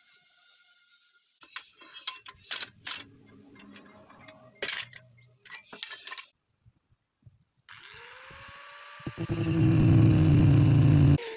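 Pieces of scrap steel clinking and clanking as they are handled, then an electric angle grinder running. Its whine rises, and it cuts into a steel bar, loudest in the last couple of seconds, before stopping abruptly.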